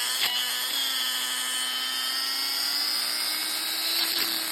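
Old angle grinder running with a steady high whine, its pitch creeping up slightly over the last couple of seconds; the owner treats the grinder as worn out and dying.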